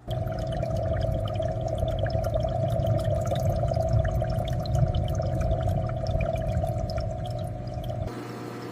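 Aquarium water pouring and trickling, with many small droplet splashes over a steady low rumble. It starts suddenly and falls back to a quieter hum near the end.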